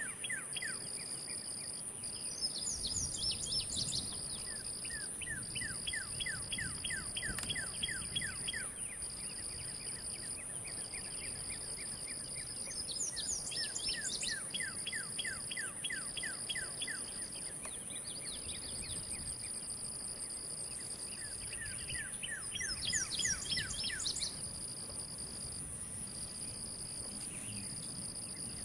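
Insects calling steadily: one constant high-pitched drone and a second trill that breaks off and resumes every second or two. Over it a bird repeats a short run of quick falling chirps, about four a second for some three seconds, coming back roughly every nine seconds.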